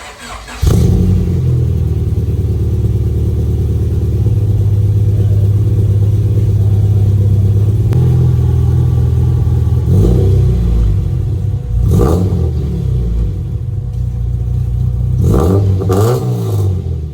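Honda Civic's B20 VTEC four-cylinder engine running through a catless straight-piped exhaust, a loud, steady low drone. It comes in suddenly under a second in and is broken by brief sharp changes about ten and twelve seconds in and twice near the end.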